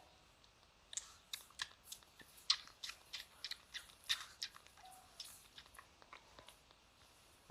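A pet chewing crunchy food: a faint run of irregular crisp crunches starting about a second in and tailing off near the end.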